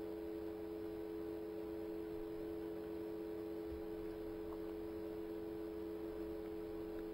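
A steady hum made of two constant tones, under a faint even hiss: the background noise of the recording during a pause, with no sound event in it.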